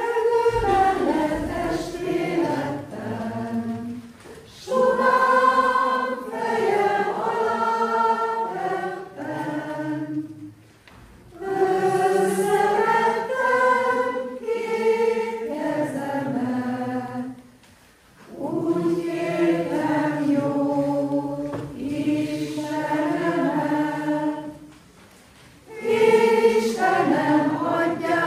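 A choir of women's voices singing unaccompanied, in sung phrases of several seconds separated by four short breaks.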